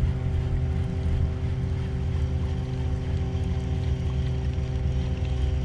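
Boat motor running steadily: a constant low drone that holds one pitch throughout.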